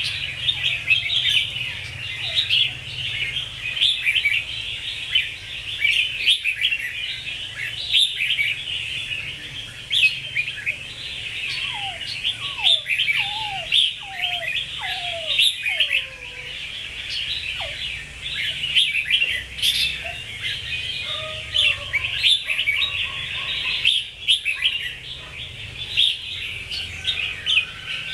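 Caged red-whiskered bulbul singing, a steady run of quick bright chirps, with a string of lower downward-sliding whistled notes midway.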